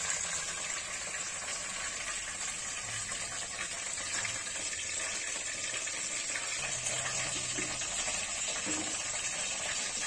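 Hot oil sizzling steadily in a pan where whole slit brinjals are frying.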